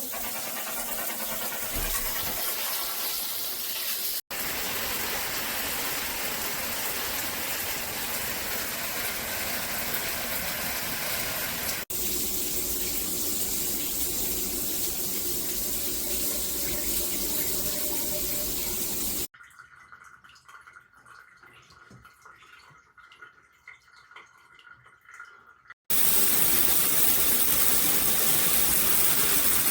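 Water spraying from a MakeFit filtered handheld shower head: a steady, even hiss, broken by a few abrupt cuts. A quieter stretch in the middle holds only faint sounds, and near the end the spray returns louder.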